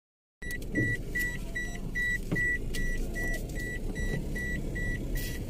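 A car's warning chime beeping steadily, about two and a half short high beeps a second, over the low rumble of the car's engine and road noise.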